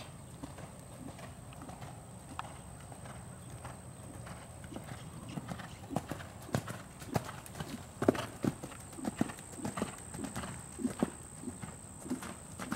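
Hoofbeats of a chestnut horse moving over sand arena footing, dull low thuds that grow louder about halfway through as the horse comes near.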